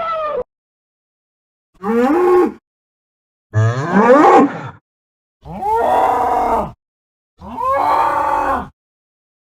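Spanish fighting bull bellowing: the end of one call, then four separate bellows of about a second each, the second rising in pitch, with dead silence between them.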